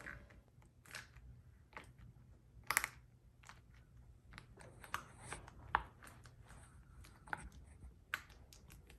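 Faint, scattered small clicks and crackles of slime being squeezed and worked by hand, with fidget toys mixed into it.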